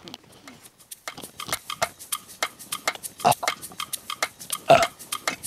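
Footsteps of two people walking through tall grass: a run of irregular soft crunches and rustles, with a couple of louder steps about three and five seconds in.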